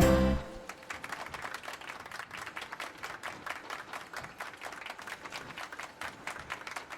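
A short musical hit with a low note, then hands clapping fast and unevenly, like a small crowd applauding.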